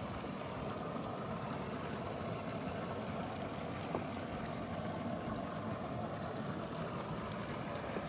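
Water running steadily from a hose into a plastic cattle trough, a continuous rushing noise, with a faint click about four seconds in.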